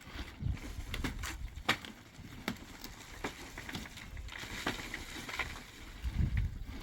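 Irregular light knocks and clicks, with a couple of low thuds, about a half-second in and again near the end.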